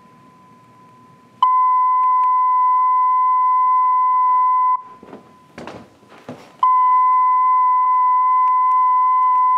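Test tone from a test record played on a turntable through loudspeakers: a steady pitched tone sounding twice, each time for about three seconds, with a few short noises in the gap between. The level of the tone from each speaker is compared to check the cartridge's azimuth.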